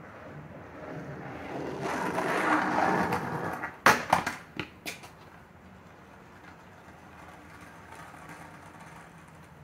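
Skateboard wheels rolling on a concrete driveway, growing louder for a couple of seconds, then a quick run of about five sharp clacks as the board strikes the concrete.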